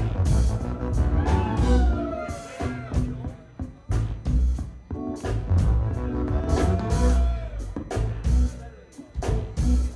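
A live funk band playing an instrumental groove: a heavy electric bass line and drum hits under a sliding melodic lead line.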